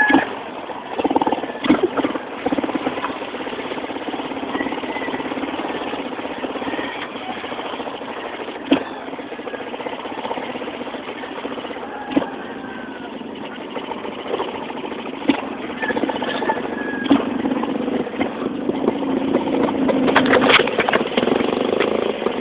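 Motorcycle tricycle's engine running under way, heard from the back seat, growing louder in the last few seconds, with a few scattered clicks and rattles.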